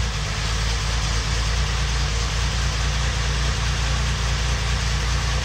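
Freshly rebuilt Datsun L28 2.8-litre straight-six idling steadily on its first run, with good oil pressure and a slight tapping that the builder calls "a bit tappy".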